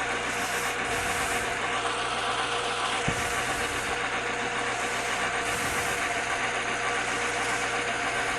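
Lathe motor and spindle running steadily while the cutting tool faces off the end of a plastic workpiece, with three short spells of higher-pitched cutting noise as the tool bites.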